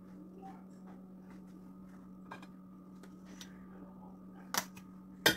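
Buttercream being spread and smoothed on a cake with a metal spatula: faint light scrapes and ticks over a steady low hum, then two sharp clinks near the end as the metal tool knocks against something hard.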